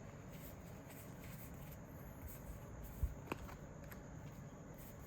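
Faint handling of trading cards as they are leafed through, with a soft low thump about three seconds in and a short sharp click just after it.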